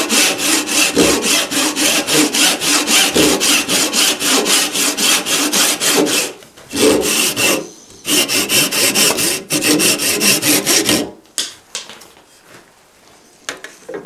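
Handsaw cutting across a wooden dowel held in a vise, shaping the angled shoulder of a bench dog: quick, even back-and-forth strokes, about three a second, with two short breaks near the middle. The sawing stops about eleven seconds in, and a few light knocks follow.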